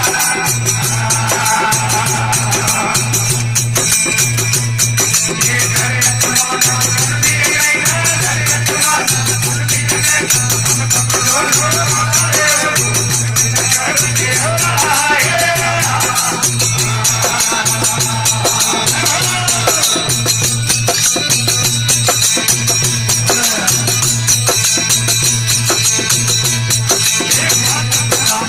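Desi devotional bhajan: a voice singing a wavering melody over fast, continuous jingling hand percussion and a steady low hum.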